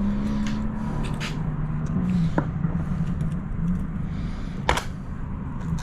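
A steady low mechanical drone, dropping slightly in pitch about two seconds in, with a couple of sharp light clicks.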